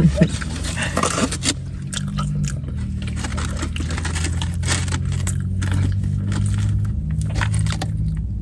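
Close-up chewing and crunching of fried chicken, many short crisp bites and chews, over a steady low hum.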